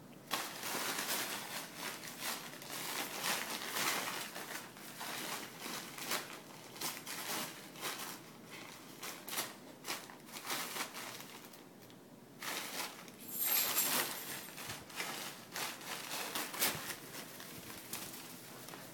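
Newspaper crinkling and rustling in irregular bursts as a small dog bites, pulls and shakes it, with a brief lull about two-thirds of the way through and then a loud burst.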